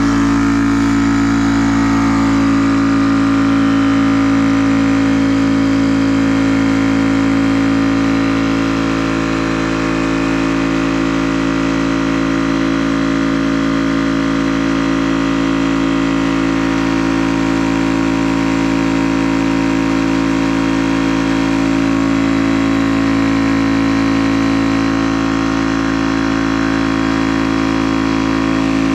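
Portable high-pressure PCP air compressor running steadily while charging an airgun with air: a loud, even mechanical hum with a strong low tone.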